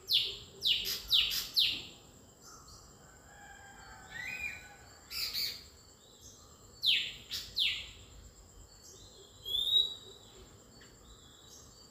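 Small birds chirping: quick, sharp chirps falling in pitch, a run of four at the start and a run of three about seven seconds in, with scattered fainter calls between.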